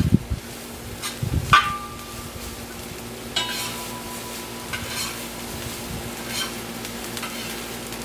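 Metal spatula scraping and knocking against a Voyager disc cooker's disc pan while fried rice and frozen mixed vegetables are stirred, over a steady sizzle. A knock about a second and a half in and another about three seconds in leave the disc ringing briefly.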